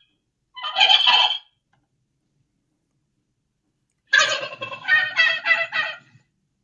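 Turkey gobbling: a short gobble about half a second in, then after a pause a longer gobble of rapid rattling pulses about four seconds in.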